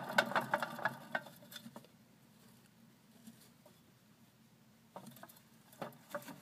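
Gerbil running in a plastic exercise wheel: a quick run of light pattering and clicking from paws and wheel that dies away after about two seconds. A few scattered taps come back near the end.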